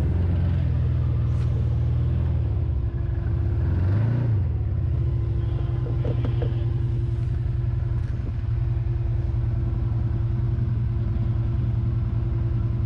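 A Can-Am Commander side-by-side's engine running, heard from inside the cab, with a brief rev that rises and falls about four seconds in, then running steadily.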